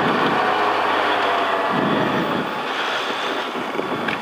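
Inside a rally car's cabin: the engine running with steady road and wind noise as the car rolls slowly at low speed after the stage finish.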